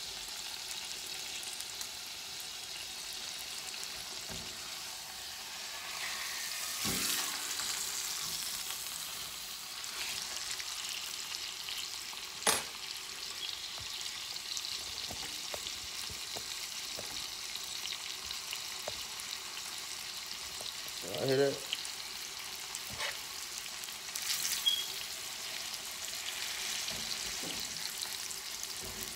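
Beef roast searing in hot oil in a frying pan, with a steady sizzle. A single sharp clink about halfway through, with a few lighter ticks.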